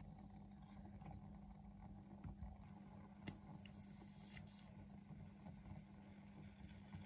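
Near silence: a faint steady low hum, with a single click about three seconds in and a brief faint high hiss just after it.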